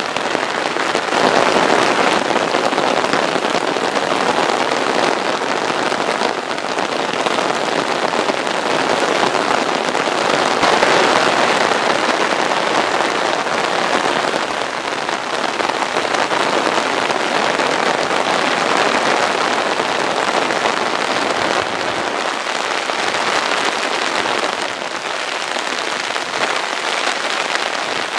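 Heavy rain pouring down, a dense steady hiss that swells louder a couple of times.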